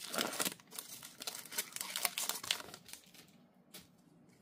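Foil wrapper of an Upper Deck Marvel Platinum trading-card pack crinkling and tearing as it is opened by hand. The crackling dies down after about three seconds, leaving a few faint ticks.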